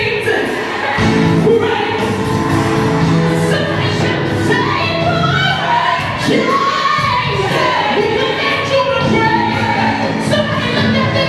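Church worship music with a group of voices singing together over the band.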